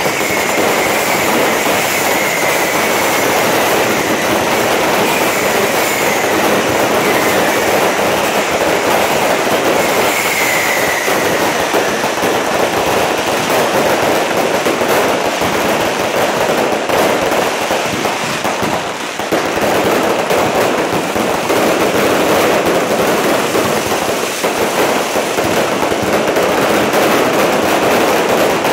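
Fireworks and firecracker strings going off nonstop in a loud, dense crackle, with several falling whistles over roughly the first twelve seconds.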